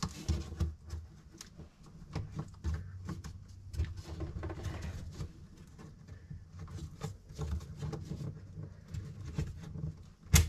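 Laser-cut wooden model pieces being handled and pressed together on a tabletop: scattered light clicks, taps and rubbing as a thin strip is worked into the frame's slots, with one sharp click near the end.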